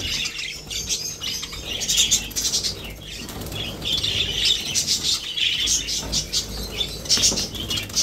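A flock of budgerigars chattering with many short high chirps, with bursts of wing fluttering as the birds fly about inside a wire cage.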